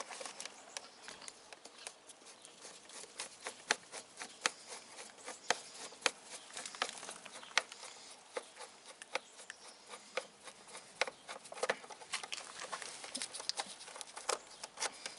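Screwdriver turning a screw out of a plastic motorcycle fairing, giving a stream of small, irregular clicks and ticks from the screw, the tool and the handled plastic panel.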